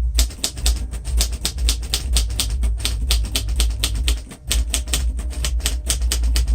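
A 1947 Royal Quiet Deluxe manual typewriter being typed steadily: a fast run of sharp key-and-typebar clicks, about seven a second, with a short pause about four seconds in. A steady low hum runs underneath.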